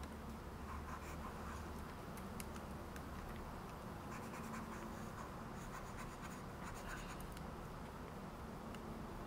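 Faint scratching of a pen stylus dragged across a graphics tablet in many short strokes, as in digital sculpting, over a low hum.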